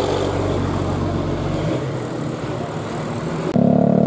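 Bus engine and street noise, then about three and a half seconds in a tour bus's telolet horn, Basuri type, suddenly starts sounding a steady chord of tones.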